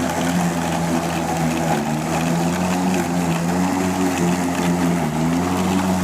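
Echo 58-volt cordless electric lawn mower running, its motor and spinning blade giving a steady hum whose pitch wavers slightly now and then.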